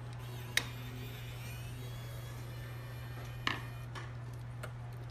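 Two sharp clicks about three seconds apart, with a faint third tick near the end, as a screwdriver works the screws of a drone's plastic gimbal mounting plate, over a steady low hum.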